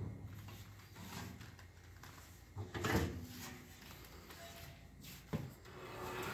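The hinged metal wheel-cover doors of an old floor-standing band saw being unlatched and swung open, with knocks and rattles, the loudest about three seconds in, and a short sharp click near the end.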